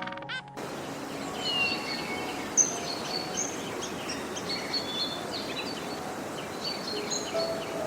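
Outdoor ambience of many small birds chirping and calling in short, scattered notes over a steady background hiss. A few duck quacks end about half a second in, and a single sharp tick comes a little over two seconds in.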